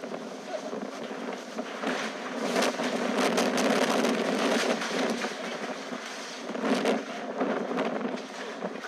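Strong gusting wind rushing and buffeting the microphone. It swells into a louder gust about two and a half seconds in and surges again near seven seconds, with scattered knocks and rattles through it.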